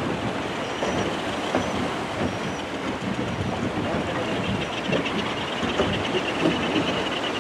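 A tour boat under way: its engine running steadily and water washing along the hull, with wind on the microphone.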